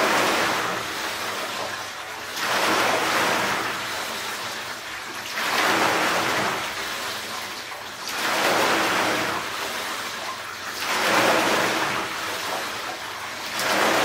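Sportstech WRX1000 water rowing machine being rowed: its paddle wheel churns the water in the plexiglass tank with each stroke. The result is a rushing swell about every three seconds, five strokes in all, sounding like the sea.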